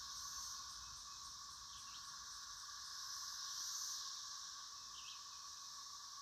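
Faint, steady chorus of summer insects, one shrill layer over a lower buzz, with a fine pulsing at the top. Two brief faint chirps come about two and five seconds in.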